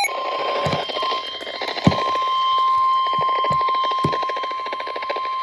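Emergency alert attention signal: a steady single-pitch alarm tone near 1 kHz, the 1050 Hz weather-radio warning tone that heralds a National Weather Service severe thunderstorm warning. A fine crackle and a few dull low thumps sound beneath it.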